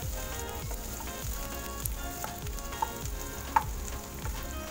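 Sliced onions sizzling as they fry in oil in a pan, stirred with a wooden spoon, with a sharp tap about three and a half seconds in.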